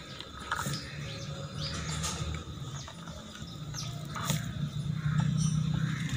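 Fluted metal pastry cutter wheel rolling through a sheet of dough on a wooden board, making a low rumble that grows louder about five seconds in. A few short chirps come through faintly.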